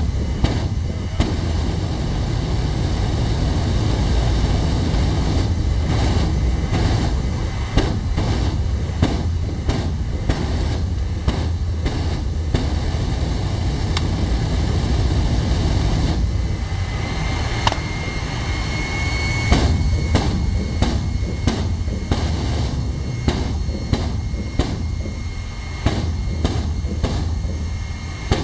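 Jet engine of a jet-powered truck running at full power, its exhaust blasting a car: a steady, deep, bass-heavy rumble with frequent sharp cracks through it. A faint high whistle rises briefly about two-thirds of the way through.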